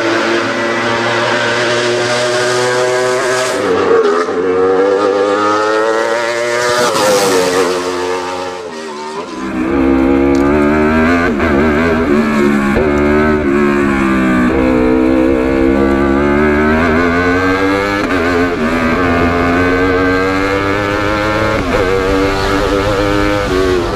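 Wolf GB08 Thunder 1150 cc race prototype engine at full throttle, its pitch climbing and dropping again and again as it shifts up through the gears. It eases briefly about eight seconds in, then pulls hard again with a deep road and wind rumble underneath.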